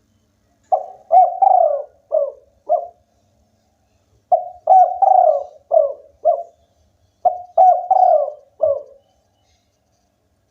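Spotted dove singing its cooing song: three phrases of about five short coos each, with short pauses between them.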